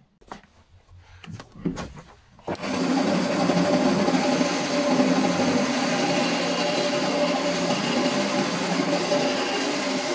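A band saw running and cutting through a block of wood: a steady machine noise with a low hum, starting suddenly about two and a half seconds in. Before it there are only a few faint scrapes and taps.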